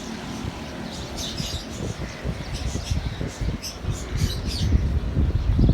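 Small birds chirping, many short high calls overlapping, over wind buffeting the microphone in gusts that grow stronger near the end.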